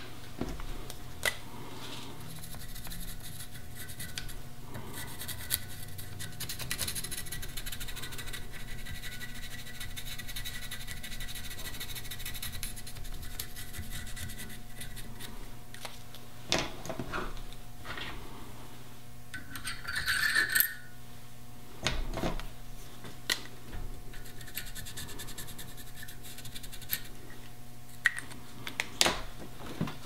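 Small steel parts handled at a bench vise: scattered sharp clicks and taps, with one ringing metallic clink about twenty seconds in, over a steady low hum.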